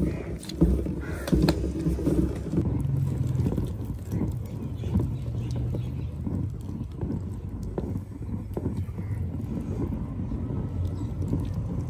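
Traditional pit-mounted potter's wheel spinning with a steady low rumble, its flywheel pushed round by hand near the start. Wet clay is worked on the turning wheel head, with scattered small knocks throughout.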